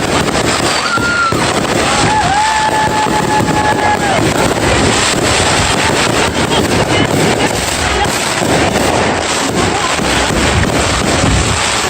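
Fireworks going off in a steady run of cracks and bangs, with a whistle held for about two seconds near the start.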